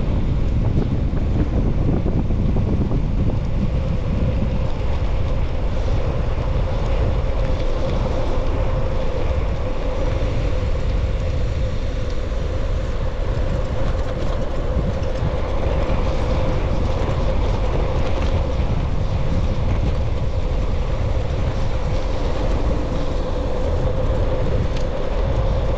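Steady rush of wind buffeting the microphone while riding, with a constant hum from the moving bike.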